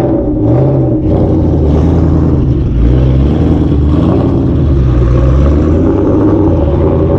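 Twin-turbo Ford Boss 302 V8 running with the hood up and being revved, its pitch climbing and falling several times between lower stretches near idle.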